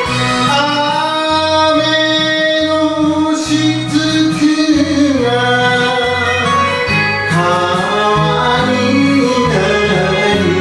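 Enka sung by a man through a handheld microphone over a karaoke backing track, in long held notes that bend in pitch.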